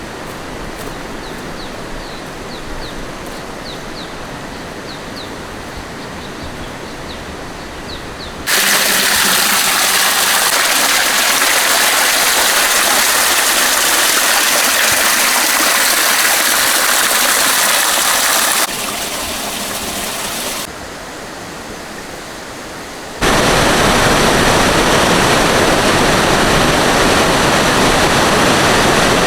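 Rushing water from a river or waterfall, a steady roar heard across several clips that cut in abruptly at different loudness. Faint short chirps sound over a quieter stretch in the first eight seconds.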